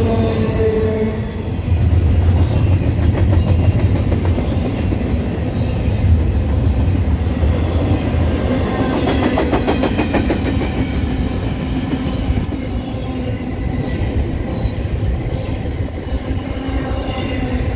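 Norfolk Southern intermodal freight train rolling past: a steady rumble of wheels on rail, with a quick run of sharp clicks about halfway through as wheels cross a rail joint. Faint high-pitched wheel squeal runs over it.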